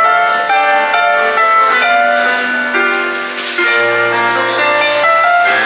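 Electronic keyboard played live through a pair of loudspeakers: a melody of held notes over chords, with a low bass note coming in about two-thirds of the way through.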